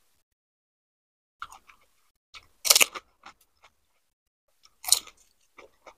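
Chewing of crisp pani puri shells with a full mouth: a few short, crackly crunches, the loudest about three seconds in and again near five seconds, with small ticks between.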